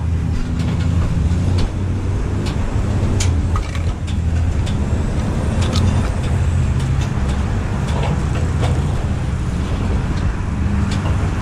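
Truck engine idling steadily, a low rumble, with scattered light clicks and taps over it.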